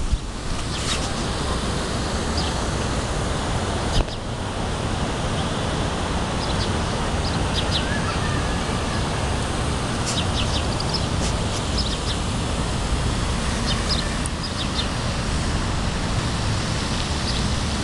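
Steady wind rushing and buffeting on the microphone, with short high bird chirps coming in little clusters several times.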